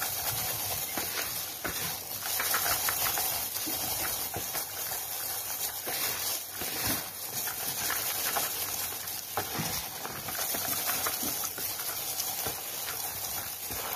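Hands mixing oiled, spiced noodle strips and chopped meat for norin in a plastic basin: a steady wet rustling and squishing with many small ticks.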